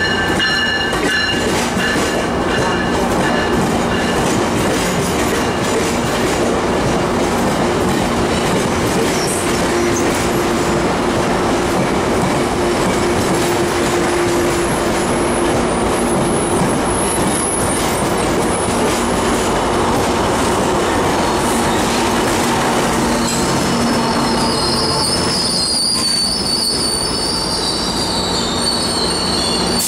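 Metrolink diesel-electric passenger locomotives running at a station platform, a loud steady drone with a low hum throughout. A high-pitched squeal comes in over it in the last few seconds.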